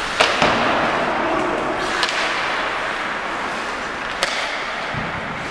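Ice hockey play: four sharp cracks of stick, puck and boards, two in quick succession at the start, then one about two seconds in and another about four seconds in, over the steady noise of the rink.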